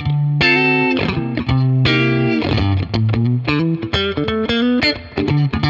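Electric guitar playing a phrase of sustained notes and chords through the Origin Effects Cali76 Stacked Edition, a pedal of two chained 1176-style FET compressors, giving the notes a long, even sustain.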